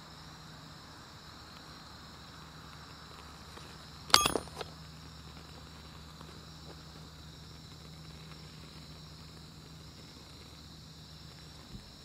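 Night insects, crickets, chirring steadily. About four seconds in comes one sharp clack with a brief ring, followed at once by a lighter one, then a faint tick near the end.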